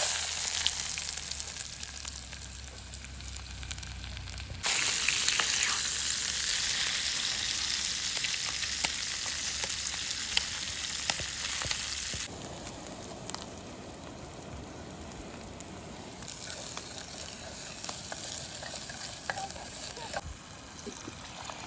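Food frying in hot oil in a pan: a steady sizzle with small pops and crackles. It gets louder abruptly about five seconds in and drops back about twelve seconds in.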